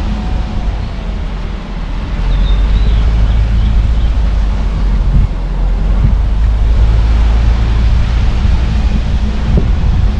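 A car driving along a road: a steady low rumble of engine and tyre noise mixed with wind noise, growing louder about two seconds in.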